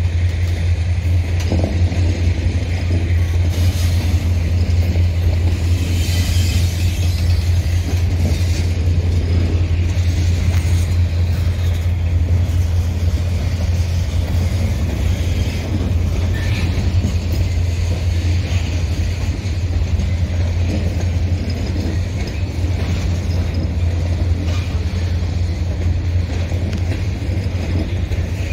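Freight train boxcars rolling slowly past on the rails: a steady low rumble of steel wheels with rattling and clanking, and a couple of faint higher squeals.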